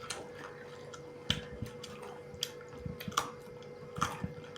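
Eating sounds: chewing pork and rice, with scattered short wet clicks and smacks of the mouth and a faint steady hum underneath.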